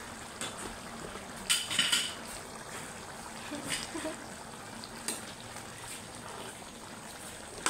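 A spoon stirring thick coconut-milk stew in an aluminium pan, scraping and clinking against the pan's metal. The clinks come in irregular clusters, loudest about one and a half to two seconds in.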